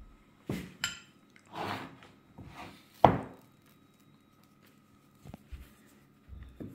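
A glass jar of sesame seeds handled on a wooden pastry board: a few clicks and clinks of glass, and a sharp knock of the jar set down on the wood about three seconds in.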